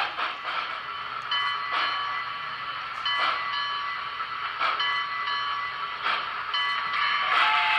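Onboard digital sound of a Broadway Limited Paragon4 N scale Reading T-1 steam locomotive model as it runs: a steady steam hiss with ringing tones and a soft chuff about every one and a half seconds, then a steam whistle starting near the end.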